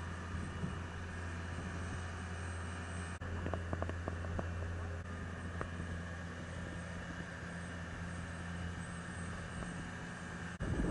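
Motorboat engine running steadily at speed, a low drone over the rush of wind and water.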